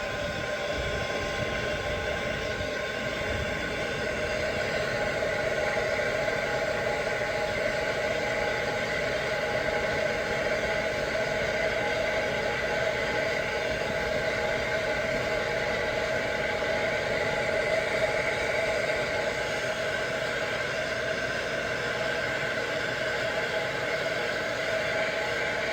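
Hot air gun running steadily, a fan whine over a rush of air, as it blows on heat shrink tubing to shrink it over a soldered joint.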